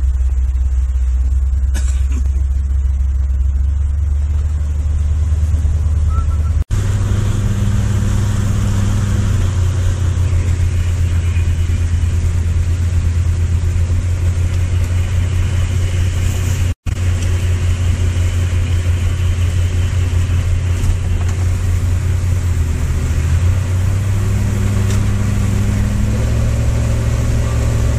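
Big rescue truck's engine running as it drives, heard from inside the cab as a loud, steady low drone whose pitch shifts up and down a few times with speed. The sound drops out for an instant twice, about 7 and 17 seconds in.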